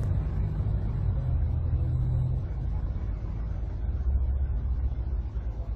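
Automatic car wash machinery running, with a steady low rumble from its spinning roller brush. A low steady hum within it stops about two and a half seconds in.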